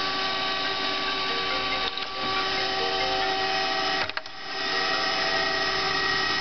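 K.O. Lee hydraulic surface grinder running under power. Its spindle motor and hydraulic drive give a steady whine of several tones as the table traverses, with a brief knock about four seconds in.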